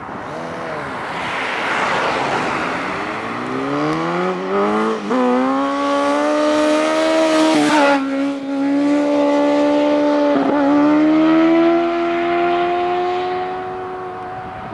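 Sport motorcycle engine revving hard during a wheelie run. Its pitch falls over the first few seconds, then three times drops sharply and climbs again, the pattern of upshifts under acceleration.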